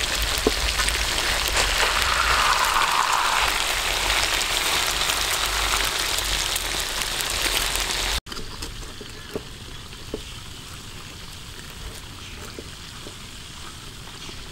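Stingray pieces deep-frying in a wok of hot oil: a loud, steady sizzle full of fine crackles. About eight seconds in it cuts off abruptly to a much quieter hiss with a few scattered pops.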